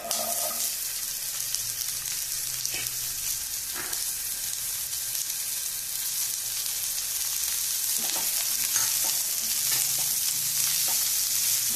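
Chopped onions sizzling steadily in hot oil in a nonstick kadhai, the sizzle starting as they are tipped in. A plastic spatula stirs them, with a few short scrapes against the pan.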